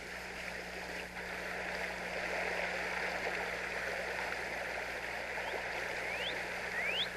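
Steady rush of flowing stream water. Over it, near the end, a few short rising bird calls.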